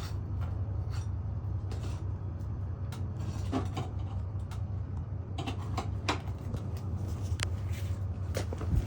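Scattered light knocks and taps from handling roof shingle pieces and a flat bar, over a steady low rumble.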